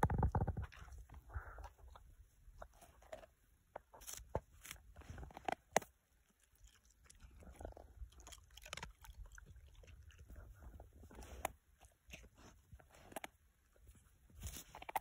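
Dog gnawing and chewing on something held between its front paws in the snow: irregular crunches and small clicks of teeth. A brief low rumble at the very start.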